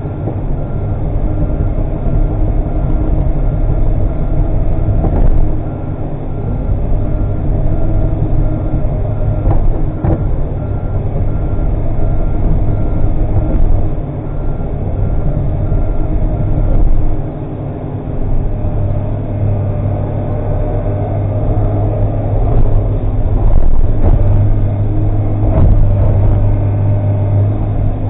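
Komatsu PC300 hydraulic excavator's diesel engine running steadily under load, with occasional clanks. A regular beeping alarm sounds through the first half or so and stops a little past the middle.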